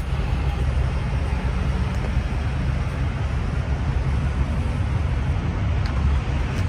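Diesel running steadily from a pump nozzle into a truck-bed auxiliary fuel tank, a constant rushing, over a low engine rumble.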